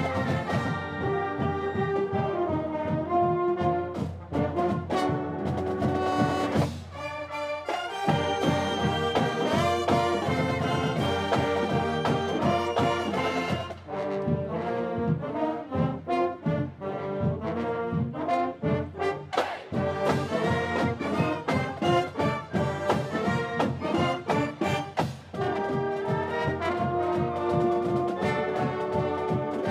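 Marching band of saxophones, trumpets, trombones and sousaphones playing a tune live with a steady beat. The music dips briefly about seven seconds in, again near the middle and again near the end.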